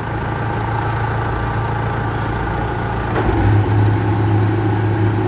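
Tractor engine running steadily while the tractor drives along with a firewood bundler on its hitch; the engine note gets louder about three seconds in.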